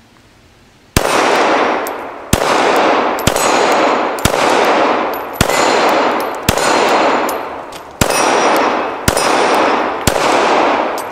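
A 9mm Glock pistol fired about nine times at roughly one-second intervals at steel plates. Each shot is followed by a ringing clang that fades over about a second, the sound of a steel plate being hit.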